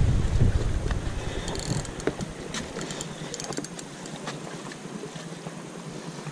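Wind rumbling on the microphone, dying down after about a second and a half, then a faint hiss with scattered light clicks from handling the spinning rod and reel.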